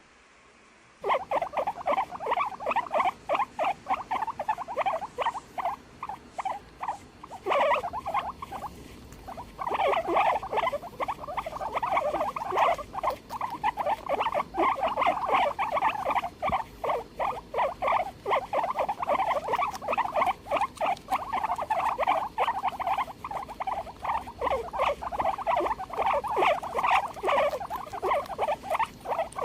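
Guinea pig squeaking in a rapid series of short high calls, starting about a second in, with a brief pause near a third of the way through.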